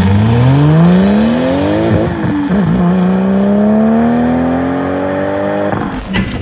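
Ford van's diesel engine pulling hard at full throttle, its pitch climbing, dropping briefly at a gear change about two seconds in, then climbing again more slowly through the next gear. It cuts off suddenly near the end.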